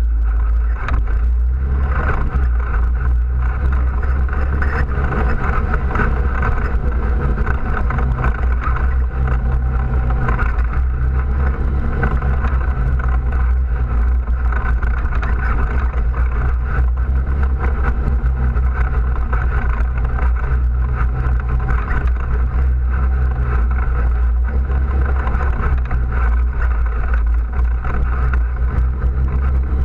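Off-road vehicle driving along a gravel trail at steady speed: its engine runs with a steady low drone, mixed with tyre and trail noise, heard from a camera mounted on its hood.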